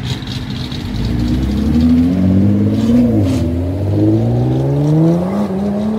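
Nissan GT-R's twin-turbo V6 accelerating hard away, its engine note climbing steadily in pitch. The pitch drops briefly about three seconds in, then climbs again.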